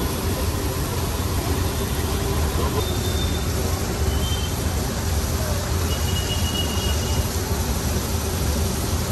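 Steady street background noise: a constant low rumble with a hiss over it and faint voices, typical of roadside traffic.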